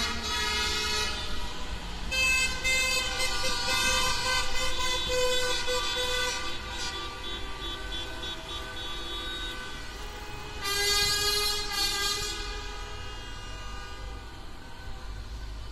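Many car horns honking at once in long, overlapping blasts: celebratory honking by passing cars. The horns are loudest from about two to six seconds in and again around eleven seconds in, over a low traffic rumble.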